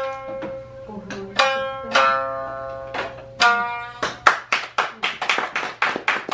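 Shamisen plucking the last few notes of a dance piece, then a small audience clapping, about five claps a second, from about four seconds in.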